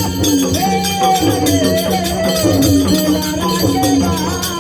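Folk music with a steady jingling percussion rhythm, like tambourine or hand cymbals, under a sliding, wavering melody line.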